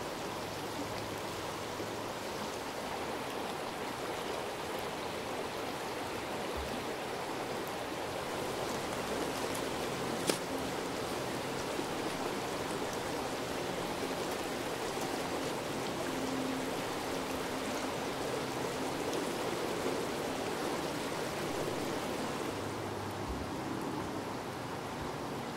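Shallow creek water running steadily over a stony, gravelly bed, an even rushing babble, with one short tick about ten seconds in.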